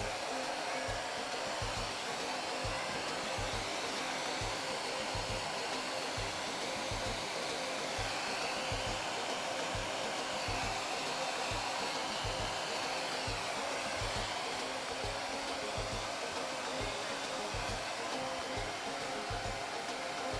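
Handheld hair dryer made for people, blowing steadily while a shampooed cat is dried.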